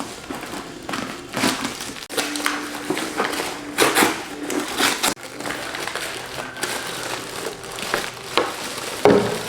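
Plastic storage containers and packaging being handled: irregular crinkling and rustling with light knocks, loudest around four seconds in and just before the end.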